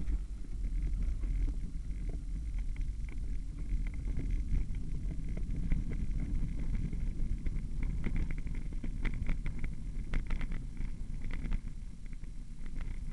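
Mountain bike rolling downhill over a rough grassy dirt trail: a steady low rumble of tyres and wind on the microphone, with clicks and rattles from the bike jolting over bumps, thickest in the second half.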